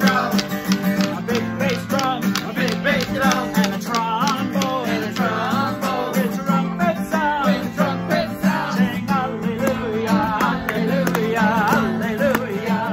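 Acoustic guitar strummed steadily while several voices imitate trumpets through cupped hands in short, sliding wordless notes.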